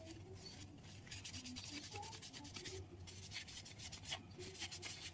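Faint, quick back-and-forth rubbing of a paper towel over a bamboo jar lid, wiping on edible oil; the strokes come thicker from about a second in.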